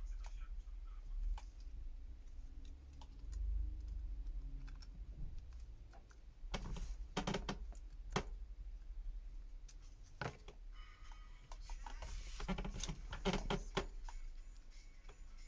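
Irregular small clicks and taps of repair tools and plastic parts being handled while taking apart a smartphone, some in quick clusters, over a low steady hum.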